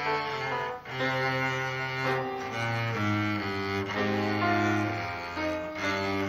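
Live classical music: a low bowed string instrument, cello-like, playing slow sustained notes that change about once a second.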